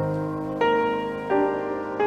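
Background music: slow, sustained piano-like keyboard chords, with a new chord struck twice.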